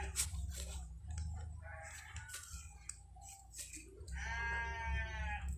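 Livestock bleating: a faint short call about two seconds in, then a long, loud bleat about four seconds in, over a steady low hum.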